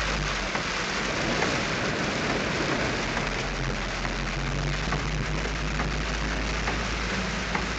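Heavy rain beating steadily on a car's windshield and roof, heard from inside the moving car, with a low steady drone from the engine and the wet road underneath.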